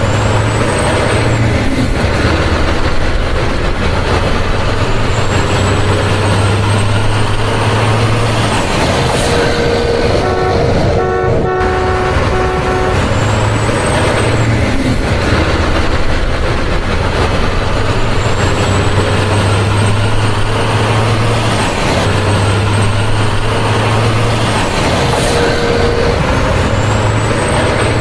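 Heavy truck engine running steadily, with a short horn-like tone about eleven seconds in. A plastic toy cannot make this sound, so it is a recorded truck sound laid over the play.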